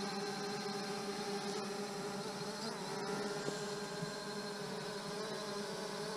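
Ruko F11GIM2 quadcopter's brushless motors and propellers spinning at idle while it sits on the ground, armed before take-off: a steady, even hum with a low pitch and many overtones that wavers slightly about halfway.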